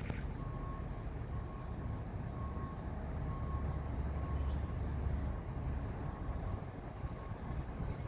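Low rumble of passing road traffic, a vehicle swelling past in the middle, with a faint short tone repeating about once a second.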